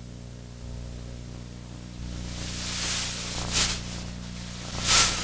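Steady low electrical hum from the lecture-hall microphone and sound system, under rustling and two short swishes as people move at the lectern.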